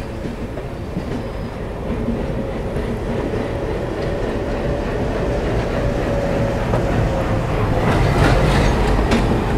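Passing train hauled by an ALCO diesel locomotive: a steady rumble of engine and rolling wheels that grows louder, with wheel clacks over rail joints in the last couple of seconds.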